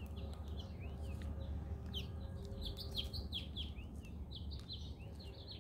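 Small birds chirping: a quick, unbroken string of short high chirps, several a second, over a low rumble.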